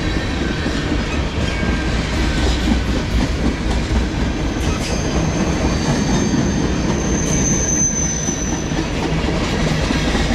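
Freight train of tank cars rolling steadily past, wheels rumbling and clacking over the rails. A thin high wheel squeal rises about halfway through, strongest near three-quarters of the way, then fades.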